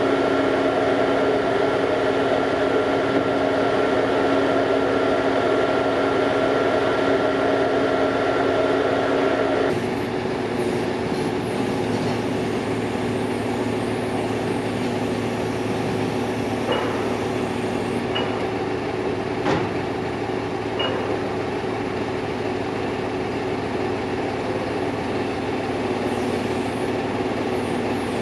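Heavy diesel machinery, most likely the mobile crane's engine, running steadily with a constant hum. The sound changes abruptly about ten seconds in to a somewhat quieter running note, with a few light clicks later on.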